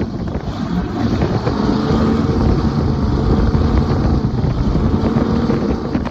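Twin Mercury Racing 525 V8 engines of a Cigarette 36 Gladiator powerboat running, a steady loud exhaust rumble.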